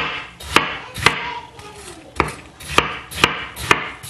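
Kitchen knife chopping watermelon on a wooden cutting board: a series of sharp knocks as the blade cuts through the fruit and hits the board, about seven strokes with a pause of about a second near the middle.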